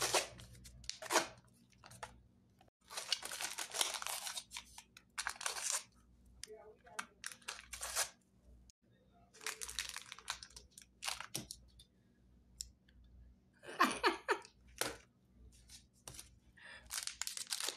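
A small paperboard box being torn open by hand, in a series of short ripping and crunching bursts with pauses between them. Near the end come the crinkles of the plastic-wrapped packets inside as they are handled.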